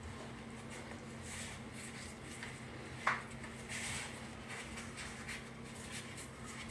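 Faint rubbing and rustling of hands handling something at the counter, over a steady low hum. A brief sharp squeak or clink sounds about three seconds in.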